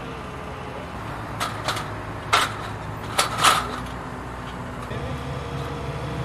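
Crane engine running steadily at a low hum, with a handful of sharp knocks about one to three and a half seconds in.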